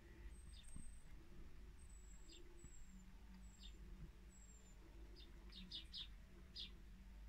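Young small songbirds calling faintly through window glass: a series of thin, very high, slightly falling notes, then short sharp chirps clustered near the end.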